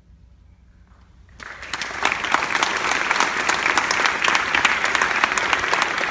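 A brief hush, then audience applause breaks out about a second and a half in and quickly swells to steady, full clapping.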